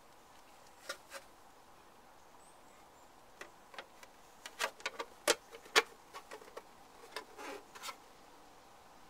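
Hard plastic alarm-box housing parts being handled, knocking and clicking against each other. There are two light clicks about a second in, then a quicker run of sharp clicks and taps from the middle to near the end, the loudest two around halfway.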